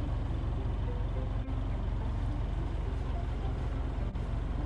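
Boat engine running steadily under way, a continuous low drone with rushing noise over it.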